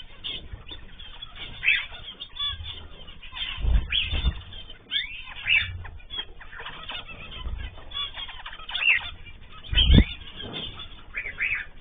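Cage birds such as cockatiels, zebra finches and canaries chirping and calling, with many short overlapping calls. There are low thumps about four seconds in and again near ten seconds, the later one the loudest.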